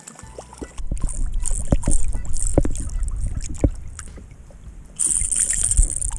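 Speckled trout thrashing and splashing at the surface beside a kayak as it is played on a topwater lure: irregular splashes and water slaps against the hull, with a louder hissing splash starting about five seconds in.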